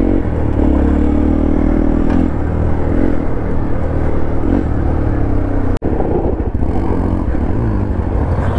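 Hero Xpulse 200 4V's single-cylinder engine running under load on a dirt trail, its pitch rising and falling as the throttle is worked. The sound drops out for an instant about six seconds in.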